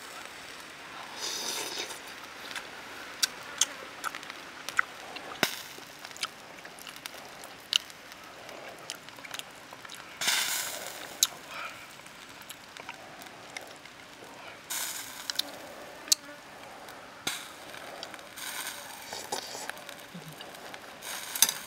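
Eating with chopsticks from a bowl: irregular sharp clicks of chopsticks against the bowl, with chewing and mouth noises in short bursts of about a second.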